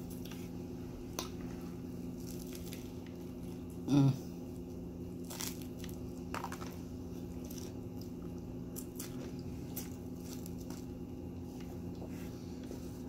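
Close-up chewing and biting into a soft egg, bacon and sausage English-muffin sandwich, with scattered wet mouth clicks over a steady low background hum. A brief vocal sound about four seconds in is the loudest moment.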